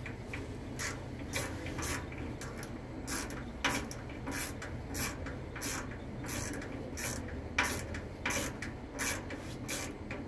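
Hands working wires and connectors inside a gas boiler's open casing: short, irregular scratchy rubbing and handling sounds, one or two a second, over a steady low hum.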